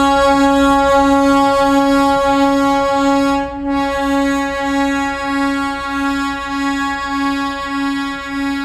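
Darjeeling Himalayan Railway toy train sounding one long whistle: a single high note with a slight pulse about twice a second, held throughout and fading out near the end.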